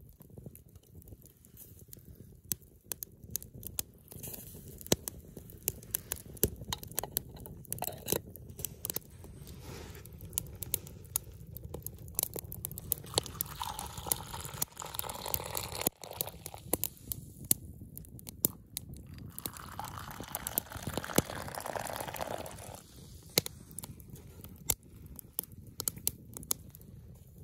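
Wood campfire crackling and popping, with hot leaf tea poured from a kettle into a plastic mug in two spells of pouring around the middle.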